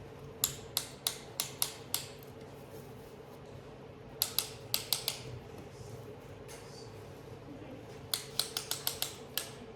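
Light sharp taps in three quick runs, the last one faster: a piston being tapped down through a ring compressor into the cylinder of a Kawasaki FD620D engine. A steady low hum runs underneath.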